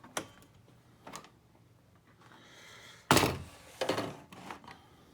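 Side panel of a Lenovo P520 workstation case being opened and pulled off. A click from the latch handle, a faint sliding scrape, then a loud clunk about three seconds in followed by a couple of lighter knocks.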